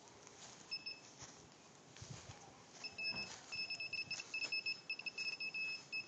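Piezo speaker on a microwave motion sensor beeping high-pitched: one short beep about a second in, then a fast run of broken beeps from about three seconds in. The beeping is the sign that the sensor is detecting movement.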